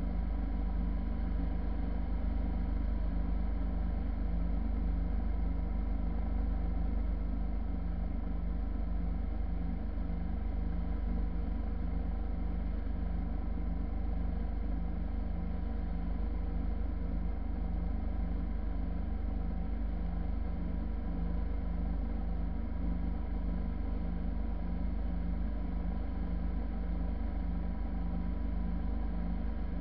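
Motorcycle cruising at a steady speed: the engine runs evenly under a low rumble of wind and road noise, with a faint regular pulse low in the sound.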